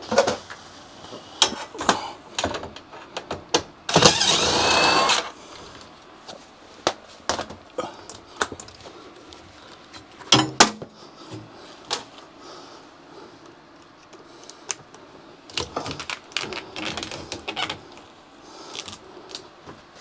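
Scattered knocks, clicks and clatter from handling the sheet-metal cabinet of an HVAC air handler during removal. About four seconds in comes a harsh scraping rasp of about a second, the loudest sound here.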